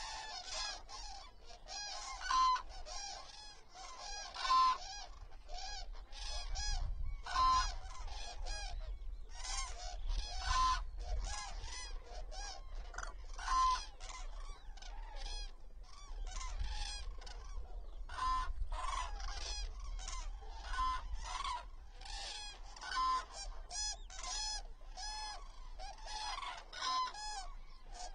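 A flock of common cranes calling, with many trumpeting calls overlapping and repeating throughout. A low rumble runs underneath through the middle stretch.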